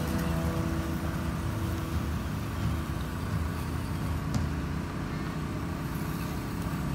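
HSP Boxer RC crawler's electric motor and gearbox whirring steadily as it drives slowly over grass.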